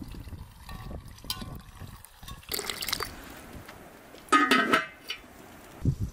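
A large black metal lid being set on a cooking pot, giving a short metallic clank and scrape with a brief ring a little past four seconds in. It comes after quieter handling noises.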